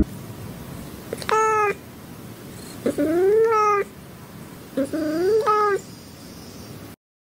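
A cat meowing three times, each call lasting about half a second to a second, the later two bending up and down in pitch.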